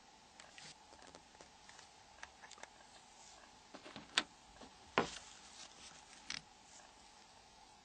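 Faint, scattered small clicks and taps of a Nokia 5300 phone's plastic parts being worked apart during disassembly, with a few sharper clicks about four, five and six seconds in. A faint steady hum lies underneath.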